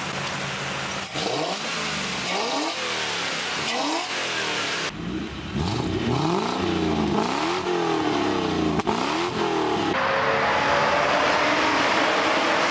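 Toyota 1UZ V8 swapped into a Mazda Miata, revved again and again, each blip rising sharply in pitch and falling back. Near the end a steadier engine note climbs slowly.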